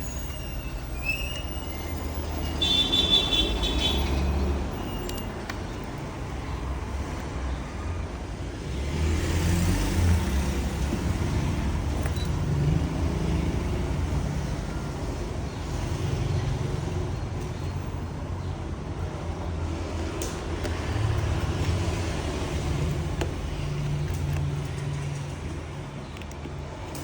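Road traffic rumbling past, swelling and fading as vehicles go by, with a brief high-pitched tone about three seconds in.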